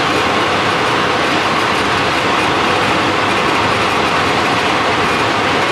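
Steady loud rush of kitchen fan noise, an even sound with no rhythm, pitch or change in level.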